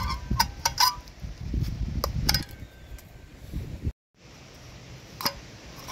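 Metal clicks and clinks from a steel caulking gun as a tube of silicone caulk is loaded into it and the plunger rod is handled: a quick run of clicks in the first second, two more a couple of seconds in, and one near the end. A low rumble of wind on the microphone runs underneath.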